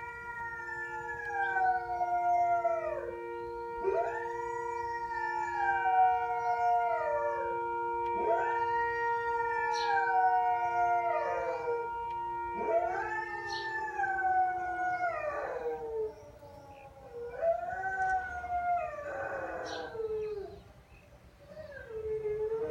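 A dog howling, a series of about six long howls, each rising quickly and then sliding down in pitch, one every four seconds or so. Behind the first half runs the steady tone of the noon siren, which set off the howling and stops about halfway through.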